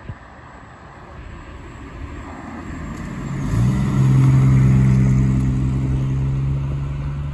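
An older sedan drives up and passes close by, its engine growing louder as it approaches and peaking as it goes past about four seconds in. After that a steady low engine note holds as the car pulls away.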